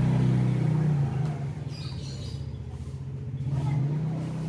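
A motor vehicle engine running nearby with a low, steady hum, loudest at the start, easing off in the middle and swelling again near the end.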